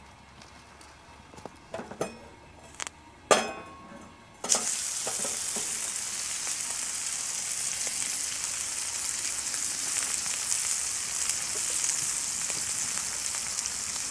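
A few clicks and a sharp knock, then about four and a half seconds in a raw steak lands in a hot frying pan on a wood-burning stove and starts sizzling at once, a steady loud sizzle from then on.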